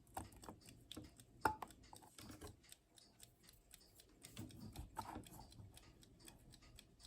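Faint light clicks and taps from a plastic Westclox alarm clock being handled, with one sharper click about a second and a half in.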